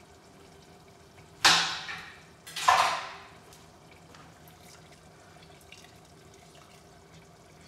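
Two short splashes of liquid, about a second apart, each fading quickly.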